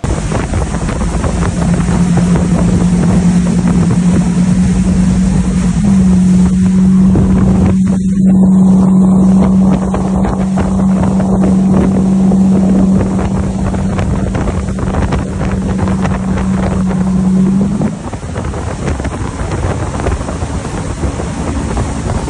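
Correct Craft Sport Nautique ski boat's GT40 351 Windsor V8 inboard running under way, a steady loud drone that steps up slightly in pitch about six seconds in and drops away near the end as the throttle comes off. Water rush and heavy wind noise on the microphone run under it throughout.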